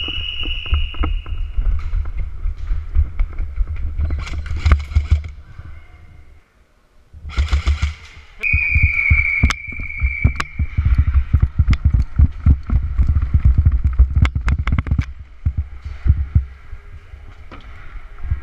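Action camera on an airsoft player being jostled while moving: heavy low rumble of handling and footfalls, with many sharp clicks and cracks of airsoft guns firing and gear knocking. A held high tone sounds at the start and again about eight seconds in, and the sound nearly drops out for about a second around six seconds in.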